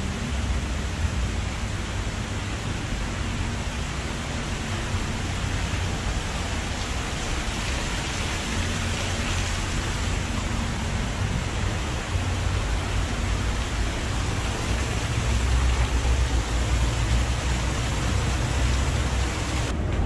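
Steady rushing and splashing of water from an artificial water feature in a rock grotto, with a low rumble underneath.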